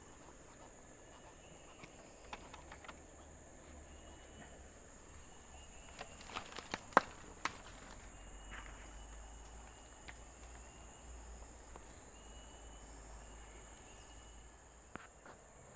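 Insects chirping steadily in a high band by the river, with a few sharp clicks about six to seven and a half seconds in.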